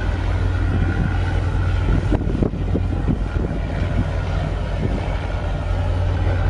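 Steady low engine hum of a ship under way, heard on deck, with wind on the microphone. A few brief low thumps come between two and three and a half seconds in.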